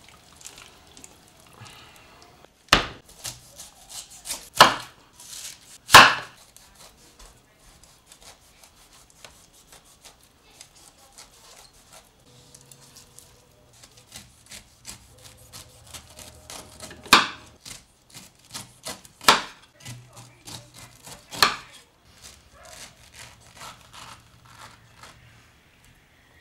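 Kitchen knife cutting a whole pineapple on a wooden cutting board: six sharp knocks as the blade goes through and strikes the board, three in the first few seconds and three more later, with quieter slicing and scraping as the skin is pared away in between.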